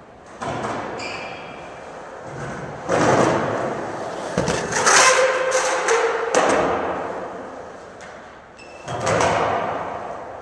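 Skateboard wheels rolling across a concrete floor in a large hard-walled hall, swelling and fading as the skater passes, with several thuds and clacks of the board, loudest around the middle.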